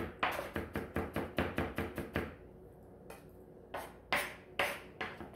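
Chef's knife rapidly chopping a shallot fine on a cutting board, about six quick knocks a second. The knocks stop for about a second and a half midway, then come back as a few louder, spaced strokes near the end.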